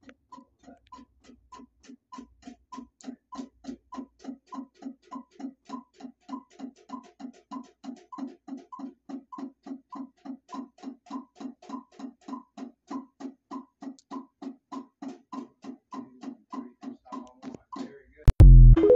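A Gretsch drum kit played in a steady, even beat, short drum strokes falling a few times a second. Near the end comes a much louder, low burst.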